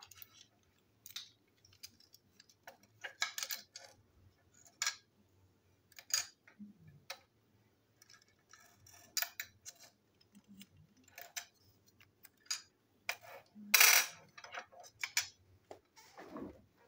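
Small plastic toy-train parts clicking and tapping as they are pulled apart and set down on a hard tabletop: irregular light knocks, with one louder clack late on.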